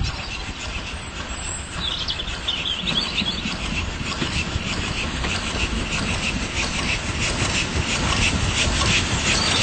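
GWR steam tank locomotive drawing a train of coaches into the station, a low rumble and hiss that grows steadily louder as it nears, with a quick regular patter from about four seconds in.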